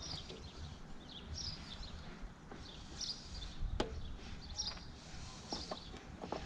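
Birds chirping over and over in the background, with a few light clicks and knocks, the sharpest about four seconds in and a cluster near the end.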